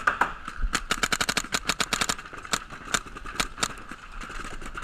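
Paintball markers firing: a rapid string of sharp pops about a second in, then scattered single shots.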